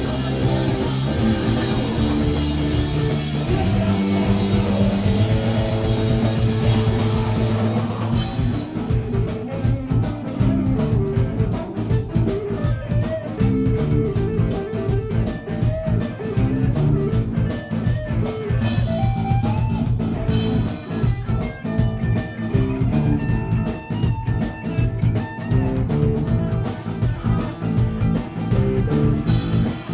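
Live rock band playing an instrumental passage on electric guitars and drum kit. About eight seconds in, the dense full-band sound thins out into a sparser section, with a steady drum beat under separate guitar lines.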